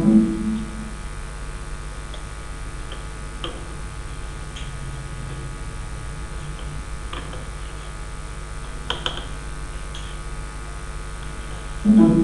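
Steady electrical mains hum picked up by the recording microphone, with a few faint scattered clicks and a brief voiced sound right at the start and again near the end.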